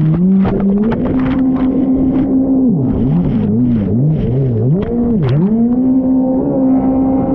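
Jet ski engine being throttled on and off hard, its pitch swooping up and down, held at high revs for a second or two, dropping and swooping again midway, then held high near the end. Short irregular knocks sound over the engine.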